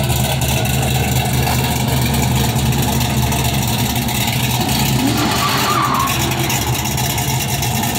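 Car engines running with a loud, steady low rumble.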